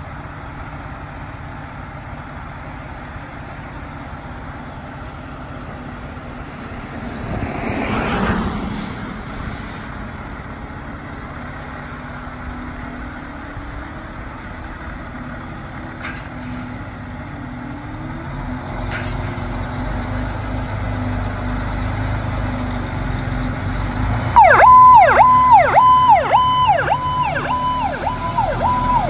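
Pierce Arrow XT fire engine's diesel engine running steadily, with a brief louder whoosh swelling and fading about eight seconds in. The engine works harder as the truck pulls out. Near the end a loud electronic siren starts, sweeping down and back up in pitch about twice a second.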